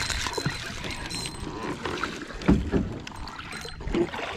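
A hooked bass splashing at the water's surface beside a plastic kayak, with rustling and knocks of handling on the hull; the loudest knocks come about two and a half and four seconds in.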